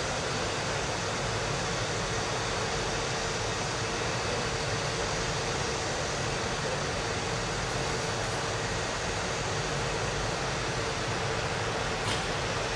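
Hydraulic power unit of a 2-tonne four-post cargo lift running as the platform rises: an electric motor and pump giving a steady hum with one held tone over an even hiss.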